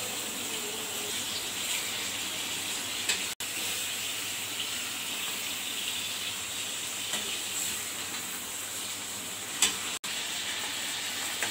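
Chicken pieces sizzling steadily in hot oil in a metal karahi, being fried until they change colour. A few sharp taps of the metal slotted spoon against the pan are heard as it is stirred.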